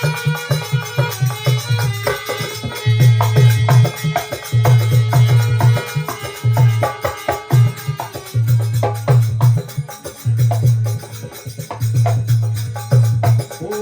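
Instrumental interlude of a live Marwari folk bhajan, without singing: a busy drum and percussion rhythm under a sustained melody line, with a heavy repeating low note.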